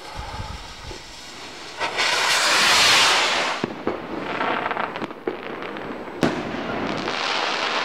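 Primed Pulsar firework rocket launching with a loud whoosh about two seconds in, crackling as it climbs, then a single sharp bang as it bursts about six seconds in, followed by crackling.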